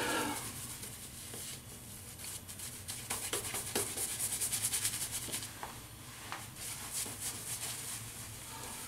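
Shaving brush scrubbing lather into about a week's stubble on the face: a rapid, rhythmic bristly swishing, loudest a few seconds in.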